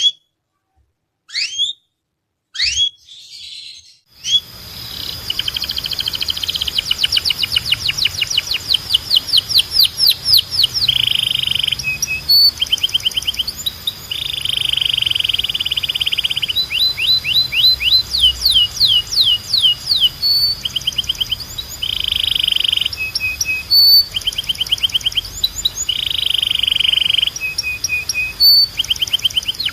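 Belgian canary singing. A few separate chirps come in the first four seconds, then a continuous song of fast rolls of repeated downward-sweeping notes alternating with buzzy trills.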